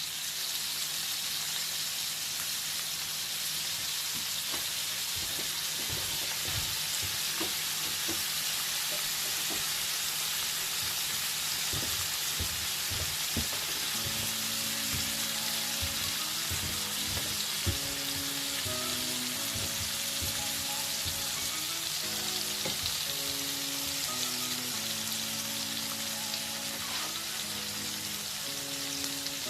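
Dover sole fillets frying in butter and oil in a pan, a steady sizzle with a few light knocks in the first half. Soft background music with held notes comes in about halfway through.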